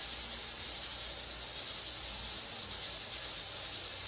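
Steady high-pitched background hiss at an even level, with no distinct scraping or knocks standing out.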